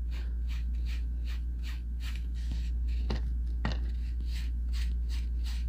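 Small round ink applicator dabbed and rubbed over kraft cardstock to blend Distress Oxide ink: soft scratchy strokes at about three or four a second, with two sharper taps a little after three seconds in. A steady low hum runs underneath.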